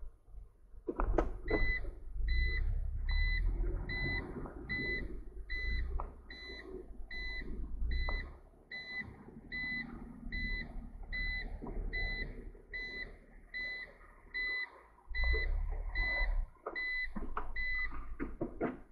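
An electronic beeper sounding about twenty short, high, identical beeps at an even pace, a little more than one a second, over a low rumble and a few knocks.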